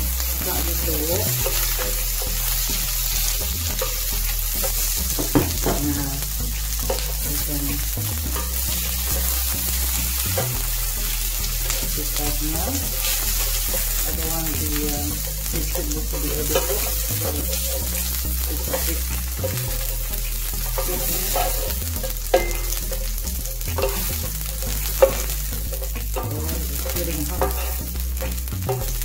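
Cut vegetables (snow peas, beans, carrot strips) sizzling in a hot oiled nonstick frying pan while being stirred and scooped with a slotted spatula, with a steady hiss and a few sharp clicks of the spatula against the pan.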